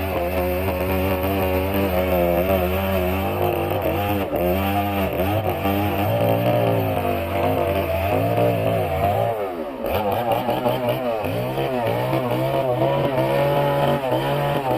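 An engine running at a sawmill, its pitch dipping and rising repeatedly as the load changes, then holding steadier and higher for the last few seconds before cutting off suddenly.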